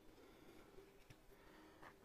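Near silence: room tone, with a couple of faint clicks.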